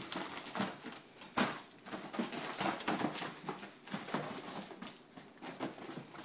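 Small dog playing with a balloon: a quick, irregular run of bumps and rubbing sounds as it noses and paws the balloon across the carpet.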